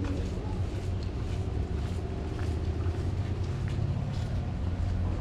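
A vehicle engine running steadily nearby, a continuous low hum over general street noise, with a few faint ticks.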